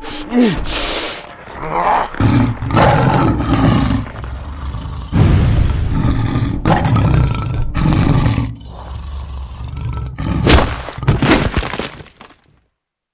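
Growling and roaring of a cartoon werewolf as the character transforms, in several long rough stretches with a few sharp hits near the end, then fading out to silence.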